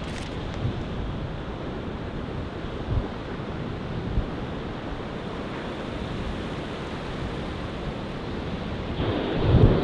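Steady rush of ocean surf and wind, growing louder with low rumbling wind buffets near the end.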